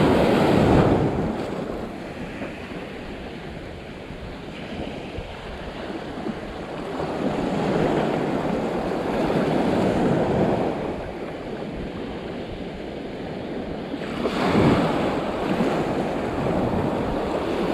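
Ocean surf breaking and washing in along the shore, with wind buffeting the microphone. The waves swell loudest right at the start, again in the middle, and briefly once more near the end.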